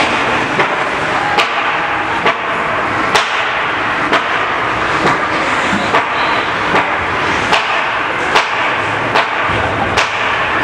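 Steady ice-rink crowd noise, with a sharp knock repeating evenly a little faster than once a second, about a dozen times.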